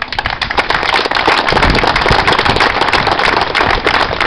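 Loud applause from a small group: many people clapping their hands in quick, uneven claps.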